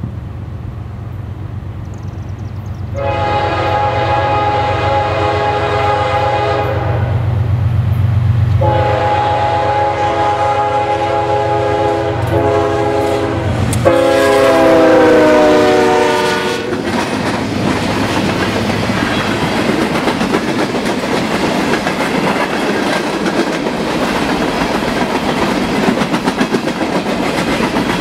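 CSX diesel freight locomotives sounding their air horn in the grade-crossing pattern: two long blasts, a short one and a final long one that drops in pitch as the locomotives pass, over the low rumble of their engines. The horn starts about three seconds in. From about halfway on comes the steady rolling noise and clickety-clack of a long train of refrigerated boxcars on the rails.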